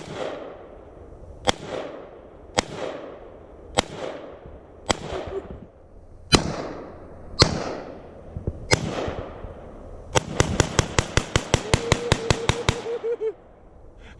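Gunfire from a firearm being shot at targets: eight single shots about a second apart, each with a short echoing tail, then a rapid string of about twenty shots over roughly three seconds.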